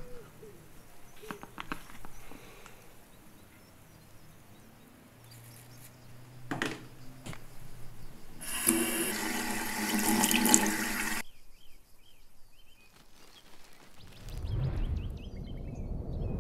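Bathroom tap turned on, water running into the sink for about two and a half seconds, then cut off suddenly. A few light clicks come before it, and a low rumble starts near the end.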